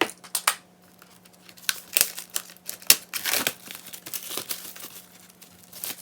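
Album packaging and plastic sleeves crinkling and rustling as they are handled and opened, with a few sharp clicks and taps.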